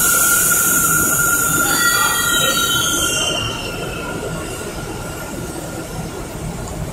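New York City subway D train pulling out of the station. For about the first three seconds a high hiss runs with a steady high whine over it; the hiss cuts off sharply, and the cars then rumble past on the rails as the train gathers speed.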